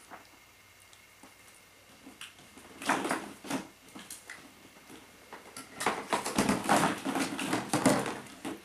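Hollow plastic ball-pit balls clattering and rustling in a plastic tub as a mink burrows through them: a short bout about three seconds in, then a longer, louder spell of clatter from about six seconds in.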